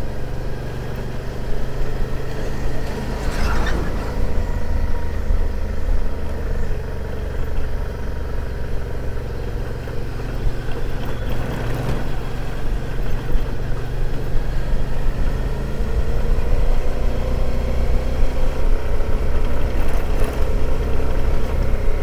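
Suzuki V-Strom 650 motorcycle's V-twin engine running steadily, getting louder over the last few seconds.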